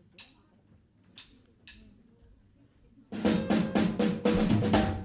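Drum kit at the start of a big-band tune: a few soft, widely spaced taps, then about three seconds in a loud snare drum fill of rapid strokes with some pitched band tones underneath.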